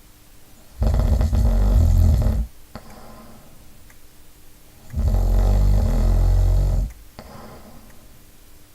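A person snoring: two loud snores, each nearly two seconds long and about four seconds apart, with softer breathing between them.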